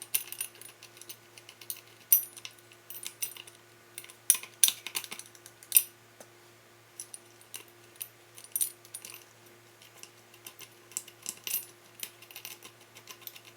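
Light metallic clicks and clinks, scattered irregularly, as screws and a washer are handled and fitted into a Mazzer Mini coffee grinder's housing during reassembly.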